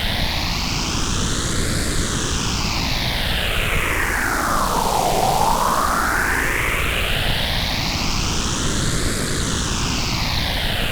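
Digitally generated noise through a phase shifter: a steady hiss with a slow whooshing sweep that rises and falls, one full up-and-down cycle about every seven seconds.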